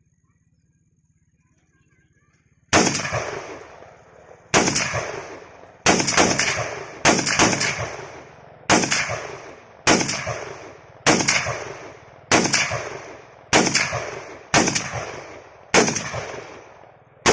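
M4 carbine (5.56 mm) fired in semi-automatic, single shots about a second apart with a couple of quick doubles, about fourteen in all, starting about three seconds in. Each shot is followed by a long echoing tail.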